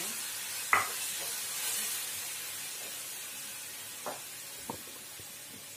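Fennel seeds sizzling in hot oil in a kadhai, a steady hiss that slowly dies down, with a sharp click about a second in and a couple of fainter clicks later.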